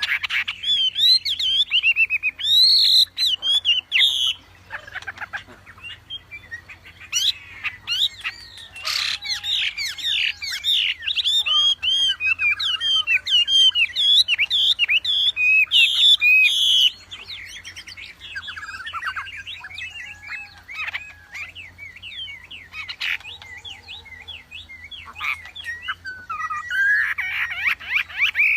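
A caged wambi songbird singing vigorously: long runs of rapid, varied whistled notes, chirps and squeaky phrases, thinning out and getting quieter after about 17 seconds before a fresh burst near the end. A faint steady low hum lies underneath.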